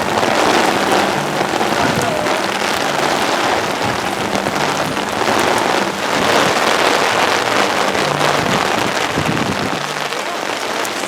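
Rain falling, a loud steady hiss.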